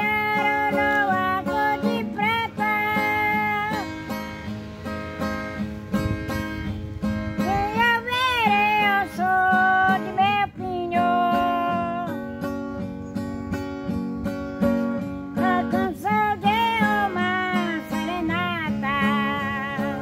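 An elderly woman singing a song in a wavering voice, accompanied by a strummed acoustic guitar.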